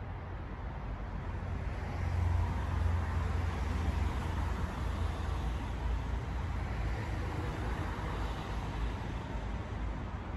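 Road vehicle noise: a motor vehicle's low engine rumble and tyre hiss, swelling about two seconds in.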